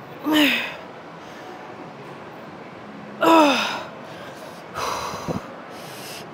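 A woman's loud, strained gasp-grunts of effort, each falling in pitch, two of them about three seconds apart, one per rep as she pushes through a set of squats on a leg machine. About five seconds in comes a breathy exhale with a short knock.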